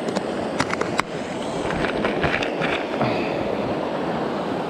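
Steady rush of river water over shallow rapids, with a few sharp plastic clicks in the first second as a clear plastic lure box is handled, then a run of lighter clicking and rattling about two seconds in.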